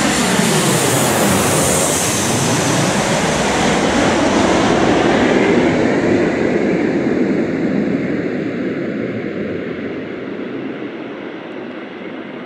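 Boeing 737-800's twin CFM56-7B turbofan engines as the jet passes low overhead on final approach. A whine falls in pitch at the start, then a loud rushing rumble peaks about halfway through and fades as the aircraft moves away.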